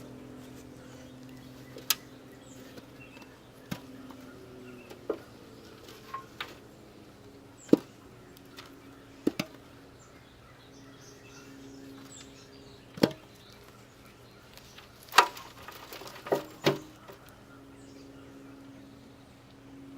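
Scattered sharp knocks and taps, about ten in all with a cluster near the end, from potatoes and plastic growing pots being handled during a container potato harvest. A faint steady low hum runs underneath.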